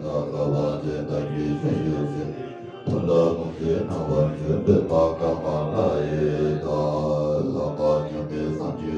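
Buddhist mantra chanted by voices over music, sustained without pauses, growing louder about three seconds in.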